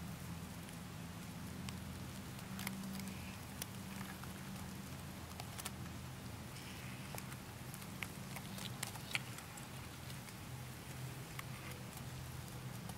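Sparse, irregular light crackles and ticks of dry grass as a California kingsnake crawls through it, over a low steady hum.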